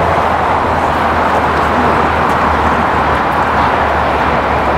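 Jet engines of a four-engine Boeing 747 at takeoff power as it climbs out overhead: a steady, loud rushing noise with a low hum beneath it.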